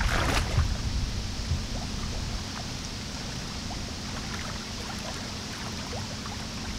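A boot splashes in shallow lake water near the start as a wader steps, then steady lapping of water along the shore over a low rumble.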